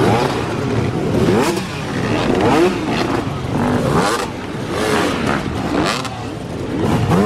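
Several dirt bike engines revving up and down under load as riders climb over giant tractor tyres, their overlapping engine notes rising and falling every second or so.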